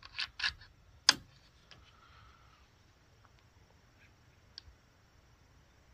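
A quick run of small clicks, then one sharper click about a second in and a few faint ticks: the action of an FX Panthera .30 air rifle being cycled and reloaded between shots of a group.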